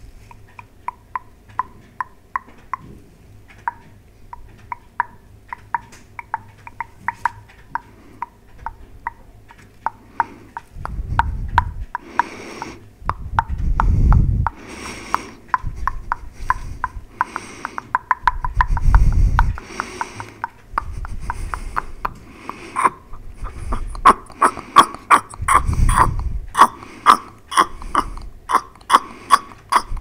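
Close-miked mouth sounds: a run of wet tongue and lip clicks, about two a second, getting quicker and louder in the last few seconds. They are broken by several heavy breaths blown straight into the microphone, the first about eleven seconds in.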